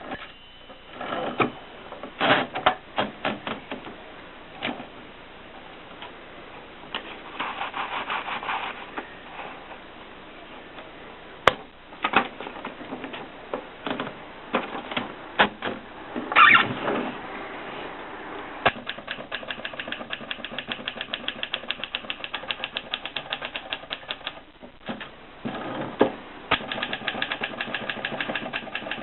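Adler Contessa manual portable typewriter being typed on: keys clacking in uneven runs, with a few louder single strikes, then a long fast, even stretch of keystrokes in the second half.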